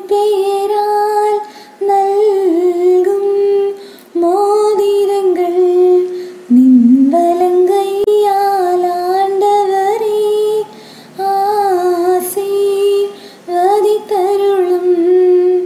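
A young woman singing solo and unaccompanied, close into a wired earphone's microphone, in sustained phrases of two or three seconds broken by short pauses for breath.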